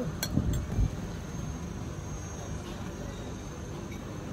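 Cutlery clinking and knocking against plates a few times in the first second, then steady background noise with a faint high steady tone.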